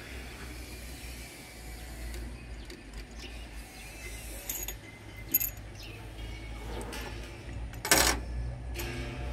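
Hand tools and bolts clinking on an excavator's hydraulic control valve as the boom holding valve is being unbolted: a couple of light metallic clinks, then a louder clank about eight seconds in, over a low steady hum.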